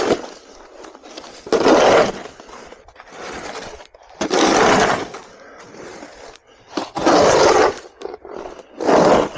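Snow shovel scraping packed snow and ice off a paved walkway in repeated strokes, four loud scrapes about two and a half seconds apart with a softer one between.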